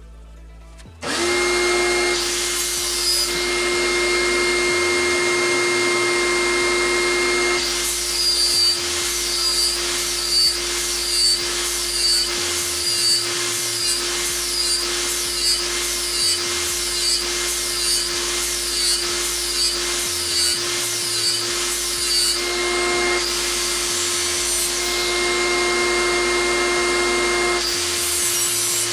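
Handheld angle grinder switched on about a second in and running at a steady whine, then grinding a lawn mower blade's cutting edge in repeated passes, about one a second, the sound swelling with each pass.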